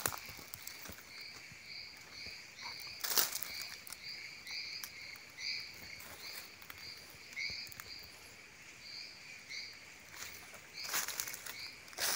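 Footsteps crunching on dry forest leaf litter, with a few louder crunches, over a steady chirp from a forest animal repeating about twice a second.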